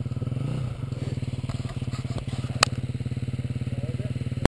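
Off-road dirt bike engine idling with a steady, even pulse, with a sharp click about halfway through and another just before the sound cuts off.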